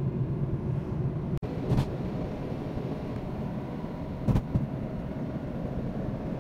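Steady low road and engine rumble inside a moving car, with a couple of brief knocks about two and four seconds in. The sound drops out for an instant a little over a second in.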